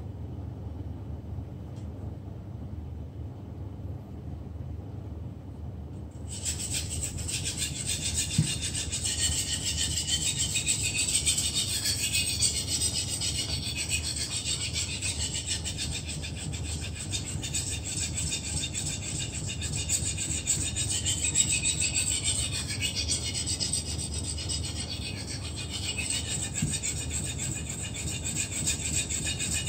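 A 30.5 cm fish processing knife being sharpened on a whetstone: steel scraping over the wet stone in continuous back-and-forth strokes, starting about six seconds in after a low hum.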